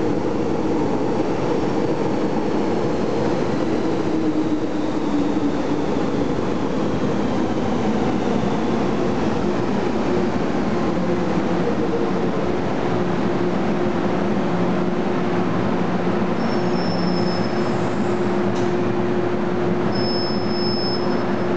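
MTR M-Train electric metro train slowing to a stop at the platform. Its motor whine falls in pitch over the first few seconds, then settles into a steady hum under the running noise, with two brief high-pitched squeals near the end.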